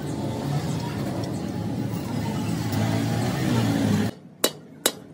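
Steady low mechanical running noise of workshop machinery, which cuts off abruptly about four seconds in. Then two sharp metal taps of a hammer on steel.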